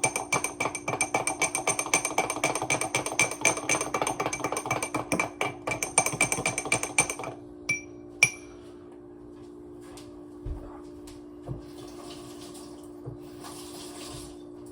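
A spoon stirring a drink briskly in a cup, clinking against the sides many times a second with a ringing tone, for about seven seconds, then two single taps on the rim. Two short soft hisses follow near the end.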